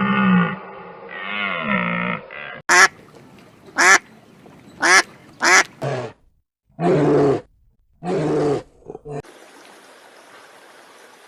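A run of animal calls: a drawn-out pitched call, then five short sharp calls about a second apart, then two longer, lower calls, followed by a steady hiss.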